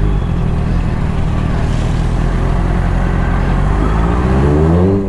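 Honda sport motorcycle's engine running steadily at low speed on the move, heard from on the bike; near the end the engine note rises as the rider opens the throttle and accelerates.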